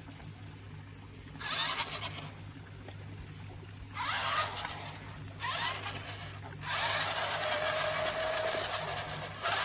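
Electric drive motors and gearboxes of a vintage Tomy/Taiyo Buggy Monster 6WD RC ATV whirring in bursts as it drives, one motor per side turning three wheels like a tank. There are short bursts about 1.5 s, 4 s and 5.5 s in, a longer run of whirring from about 7 to 9 s, and another short burst near the end.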